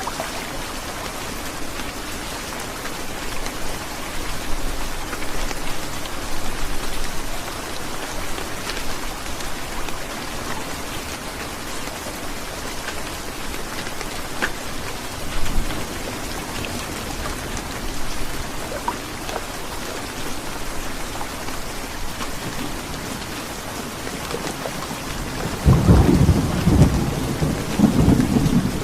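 Heavy rain falling steadily, with a loud low roll of thunder starting near the end.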